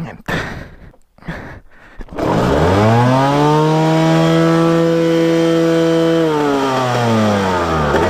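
Suzuki RM 250 two-stroke single being kick-started: a few scuffing kicks, then about two seconds in it fires and revs up quickly to a high, steady, buzzing note. About six seconds in the revs sag sharply almost to stalling, after ten months standing with what the owner takes to be dirty fuel.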